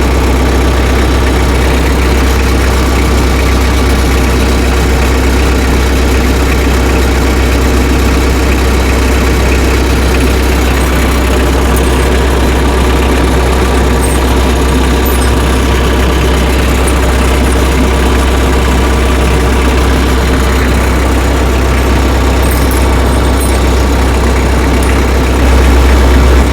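Tractor engine idling steadily with a deep, even hum, a little louder near the end.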